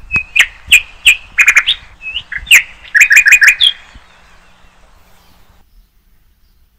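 A small bird chirping: a string of short, sharp chirps with a quick run of them about three seconds in, stopping about four seconds in.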